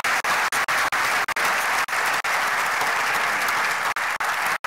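Audience applauding, a dense, steady clapping, with the sound cutting out briefly many times.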